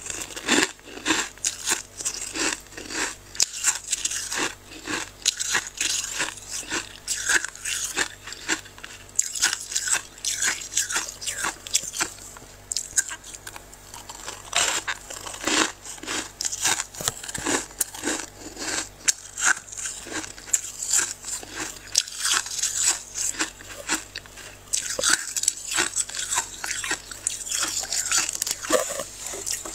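Thick freezer frost crunching in a quick, irregular run of sharp crunches, with a short lull about halfway through.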